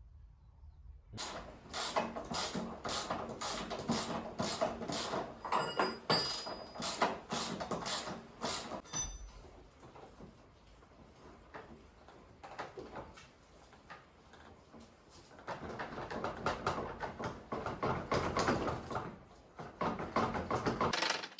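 Hand tools clicking and clanking on metal while a scooter engine is taken apart. Dense clicking starts about a second in, eases off midway, then picks up again near the end.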